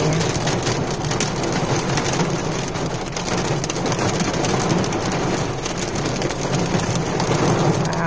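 Rain and hail hitting a car's roof and windshield, heard from inside the car: a dense, steady patter full of sharp little ticks, over a low hum.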